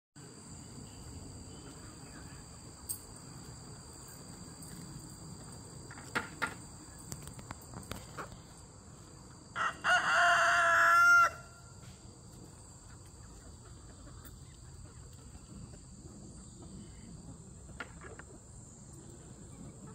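A rooster crows once about ten seconds in, a call of about a second and a half that is the loudest sound here, over a steady high-pitched drone of insects. A few short clicks come a few seconds before the crow.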